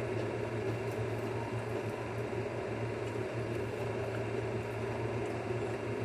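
Steady low hum with an even hiss: continuous background room noise from a running appliance.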